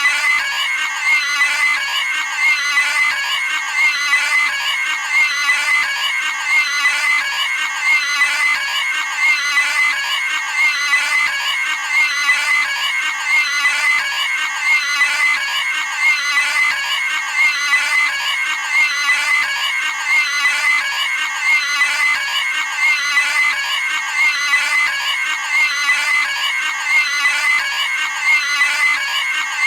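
Cartoon pig squealing sound effect, looped: one short, high squeal after another, about every second and a half.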